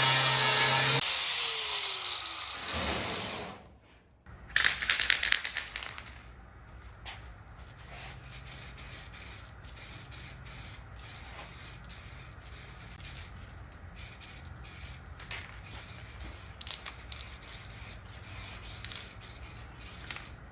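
An electric power tool spins down with a falling whine. After a pause comes a short, loud burst of rapid rattling, then faint, steady rubbing strokes of a brush working KBS rust-preventive coating onto car body sheet metal.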